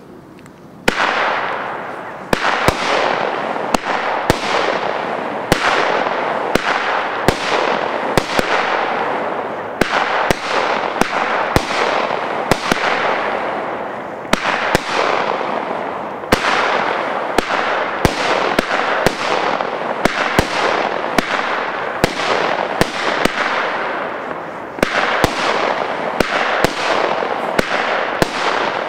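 A Weco 'Fata Morgana' consumer fireworks cake firing, starting about a second in: sharp bangs come every one to two seconds, each followed by a dense hiss that fades.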